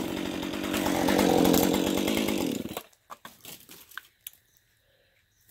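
Husqvarna 550 XP G two-stroke chainsaw running, then shut off abruptly a little under three seconds in. A few faint clicks and crackles follow.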